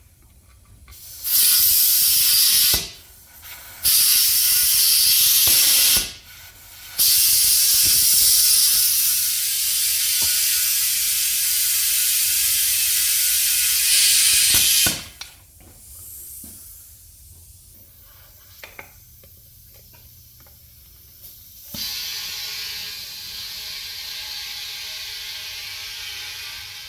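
Compressed air hissing loudly through a lock-on air chuck into a tire's Schrader valve, inflating a beadlock tire to seat its bead. The air comes in three bursts, the last about eight seconds long. It is followed by a pause with a few small clicks, then a quieter steady hiss with a faint hum near the end.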